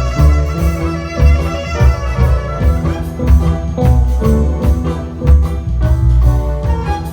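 A band playing music with a heavy bass line and a steady drum beat.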